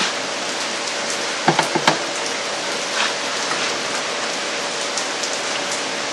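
A few light metallic clicks and clinks about one and a half to two seconds in, and one more near three seconds, from small parts being fitted by hand onto an MGB's brake master cylinder. A steady, even hiss runs underneath.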